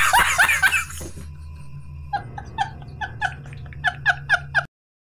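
A man laughing hard in loud, rhythmic bursts. After a short lull it turns into rapid high, squeaky gasps of laughter, about three or four a second, then cuts off suddenly near the end.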